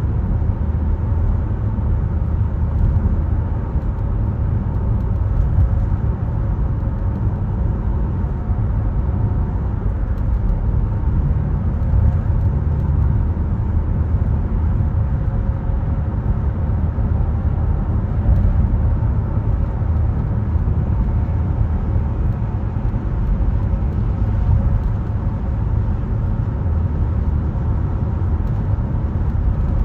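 A car driving: a steady, continuous rumble of tyres on the road and engine, with a few faint steady tones above it.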